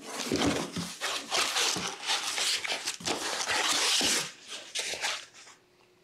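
Cardboard box and packing material rustling and scraping as a wrapped item is pulled out of the box, in a busy run of scuffs and crinkles that dies away near the end.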